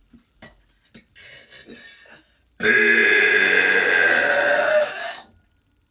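A woman's long, loud burp lasting about two and a half seconds. It starts abruptly a little over two seconds in, after a few faint small sounds.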